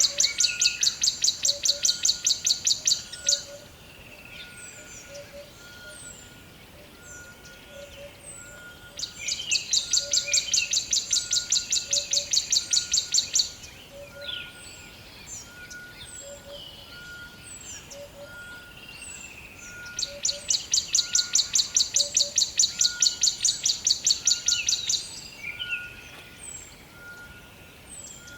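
Rainforest ambience: birds calling with many short high chirps over a soft note repeated about once a second. A loud, rapid pulsing trill comes in three bursts of four to five seconds each: the first stops about three seconds in, and the others run from about nine seconds and about twenty seconds.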